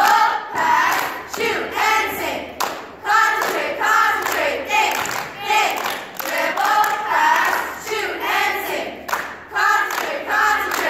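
A group of teenage girls singing a chant together in unison, keeping time with hand claps.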